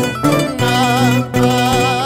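Andean string-band music from the song track: a mandolin playing over stepping bass notes, with a wavering held melody line above.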